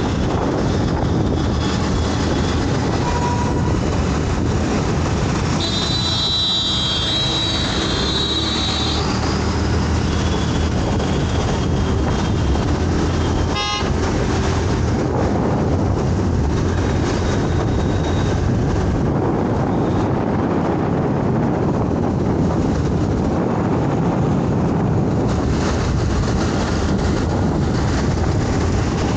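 Steady road and wind noise from a moving scooter in city traffic, with a vehicle horn honking for about three seconds around six seconds in.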